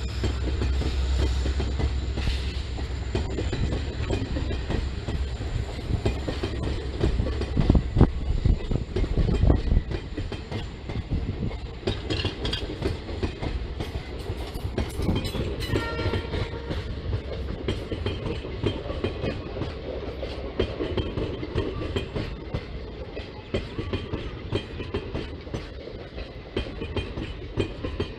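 Indian Railways passenger train's coaches rolling past, wheels clattering steadily over the rail joints, with a few louder clanks about eight to ten seconds in.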